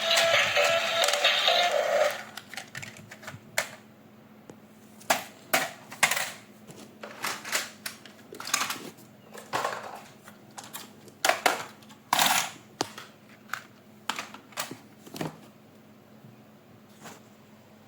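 Music that stops about two seconds in, followed by irregular sharp clicks and light knocks as toys and their packaging are handled.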